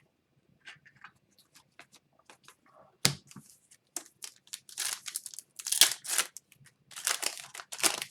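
Wrapper of a 2021-22 Upper Deck Series 1 hockey card retail pack being torn open and crinkled: light ticks of handling, a sharp click about three seconds in, then a run of tearing and crinkling.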